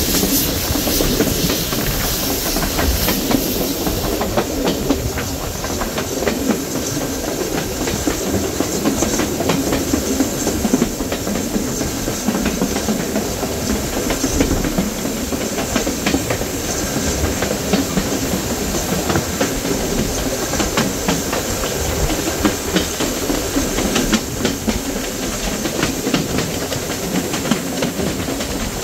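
Steam train running along the track: a steady rumble with faint wheel clatter on the rails, and a brighter hiss of steam during the first few seconds.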